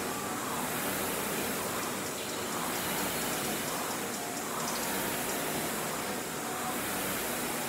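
Air-resistance rowing machine's flywheel fan whooshing steadily, swelling with each pull about every two seconds.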